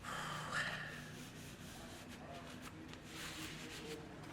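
Two short rubbing strokes on a workpiece: one right at the start and one about three seconds in.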